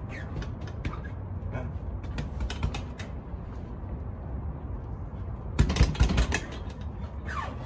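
Shoes scuffing and tapping on a concrete floor during footwork, then, about five and a half seconds in, a quick flurry of hand strikes on a hanging heavy punching bag, the loudest sounds here. A short creak near the end.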